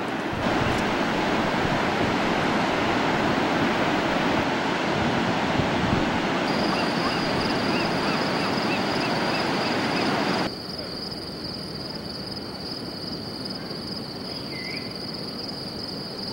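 Ocean surf breaking, a steady rush of noise. About six seconds in, a steady high insect trill like crickets comes in, and about ten seconds in the surf drops away suddenly, leaving the quieter trill over a faint background hiss.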